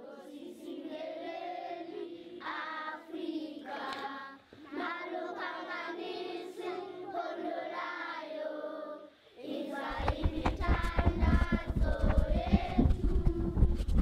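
Several voices singing together in a choir-like song. About ten seconds in, a low rumbling noise joins underneath the singing.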